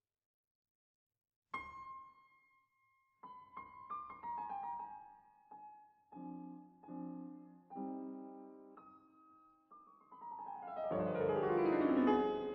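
Background solo piano music: single notes and chords starting about a second and a half in, building to a quick descending run of notes near the end.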